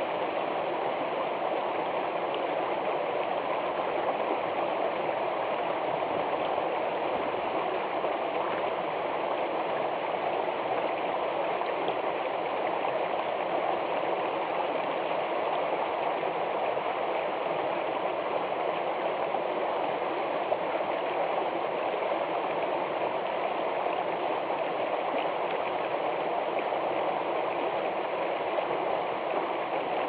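Small stream rushing over rocks in a short cascade: a steady, unbroken rush of water.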